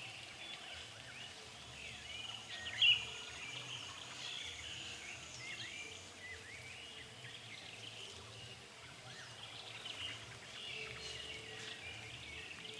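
Birds chirping and calling, many short scattered chirps, with one louder chirp about three seconds in, over a faint steady outdoor background.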